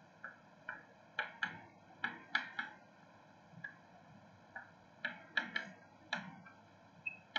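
Chalk writing on a chalkboard: a string of short, irregular taps and strokes as letters are written.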